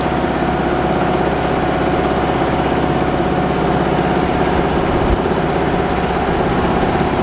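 A hired river day launch's motor running steadily as the boat cruises slowly, a constant hum with no change in pitch.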